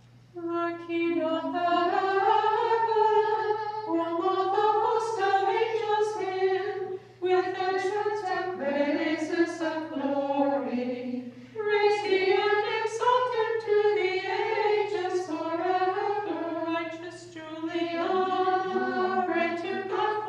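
Orthodox nuns' voices singing a liturgical chant unaccompanied, in several phrases with three short breaks between them.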